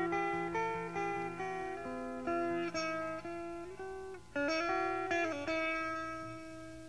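Background music: a guitar picking single notes in a slow melodic line, each note ringing on under the next, with no drums.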